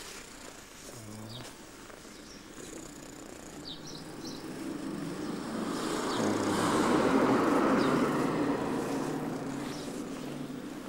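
A vehicle passing by, its noise swelling to a peak about seven seconds in and then fading, with faint bird chirps over it.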